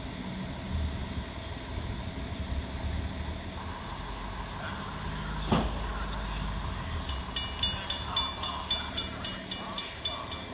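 Railroad grade-crossing warning bells start ringing about seven seconds in, a fast, even ding of about four strikes a second, over the low rumble of a train approaching the station. A single sharp knock sounds about halfway through.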